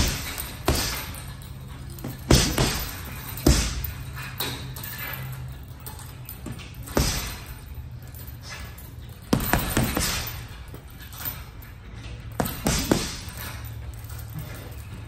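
Gloved punches landing on a hanging heavy bag: single thuds and quick two- and three-punch combinations with short pauses between, over a steady low hum.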